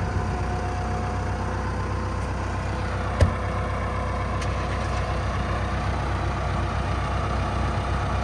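An engine idling steadily, with one sharp thump about three seconds in, most likely the pickup's driver door shutting.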